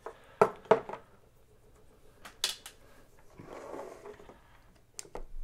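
Light clicks and knocks of plastic and metal parts being handled on a bench: the opened Proxxon IBS/E's housing, switch and brushed DC motor. There are a handful of sharp clicks, two close together near the start and two more a couple of seconds in, with a brief soft rustle about three and a half seconds in.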